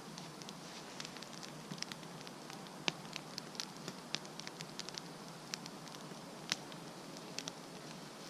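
Wood campfire crackling: irregular sharp pops and snaps over a steady low hiss, a few louder pops standing out about three seconds in and again past six seconds.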